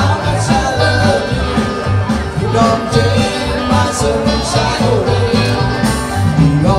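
Background music with a steady low beat under a wavering melody line.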